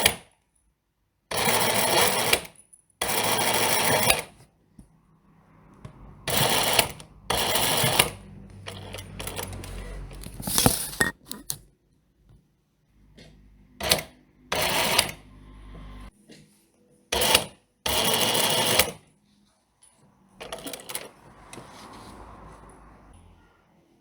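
Sewing machine stitching in short runs of about half a second to a second, stopping and starting about ten times. Quieter clicks and handling noise come between the runs.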